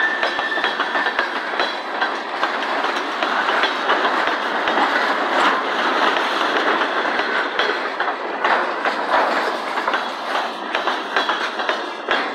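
Freight cars (a tank car and covered hoppers) rolling past close by: steel wheels running on the rails with a steady clatter and repeated clicks over the rail joints. A brief high wheel squeal sounds right at the start.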